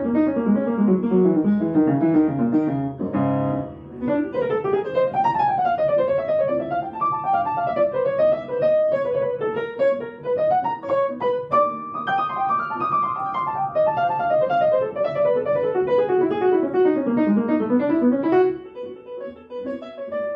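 Upright piano playing a fast jazz solo, quick runs of notes climbing and falling. About 18 seconds in the solo ends and a few softer notes ring out before it stops.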